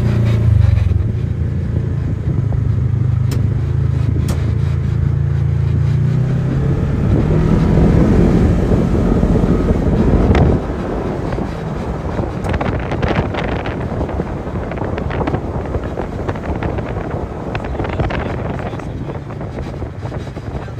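Side-by-side UTV engine running as the machine drives along a dirt trail, a steady low drone for the first several seconds that then shifts and climbs. About halfway through the sound changes abruptly to a rougher, noisier rumble with wind on the microphone.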